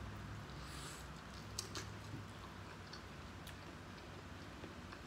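Soft chewing of corn on the cob, with a few faint wet mouth clicks, over a low steady hum.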